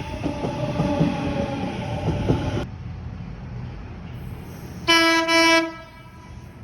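Sydney train running on the rails with rumbling, clicking wheel noise and faint steady squeal tones, which stops suddenly. About five seconds in, a train horn gives two short blasts in quick succession, the loudest sound here.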